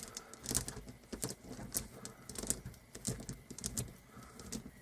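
Motorcycle roller chain, off the bike, being flexed back and forth by hand, its links clicking and rattling in an irregular series of light clicks, a few each second. The chain is being tested for stiff links after its seized links were freed with an oil soak.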